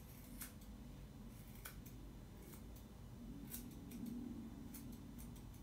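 Short curved grooming scissors snipping a dog's long coat at the base of the ear: about six quiet, single snips, irregularly spaced a second or so apart.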